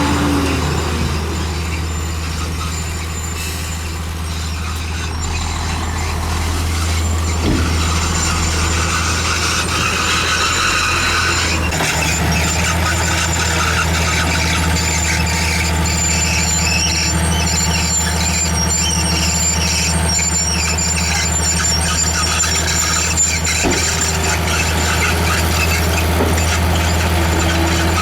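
Crawler bulldozer working: its diesel engine drones steadily under load, with high squealing from the steel tracks running over the rollers and idlers.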